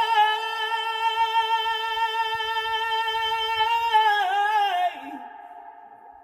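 A man's unaccompanied chanting voice holds one long high note of a religious tasbih, wavers into an ornament near the end, and breaks off about five seconds in, leaving a faint fading tail.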